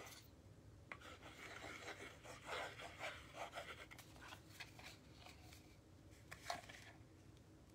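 Faint handling sounds: a thin laser-cut wooden piece and a squeeze bottle of white glue rubbing and tapping lightly as glue is applied, with one sharper tap about six and a half seconds in.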